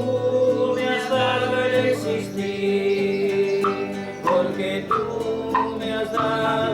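Background music with held melodic notes over plucked guitar; from about four seconds in, plucked notes fall at an even beat.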